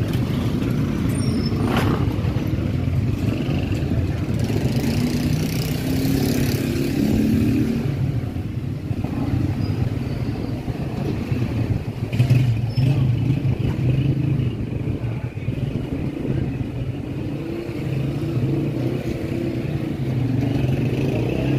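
Busy street traffic, motorcycle and car engines running and passing steadily. There is a sharp knock about two seconds in and a louder one about twelve seconds in.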